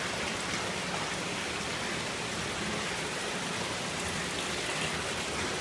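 Steady rush of running and splashing water from the pumps and pond filters circulating the koi vats.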